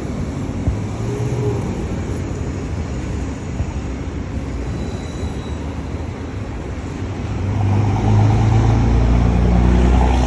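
A motor vehicle's engine running with a low, steady rumble, growing louder about seven and a half seconds in as the vehicle draws closer or is revved.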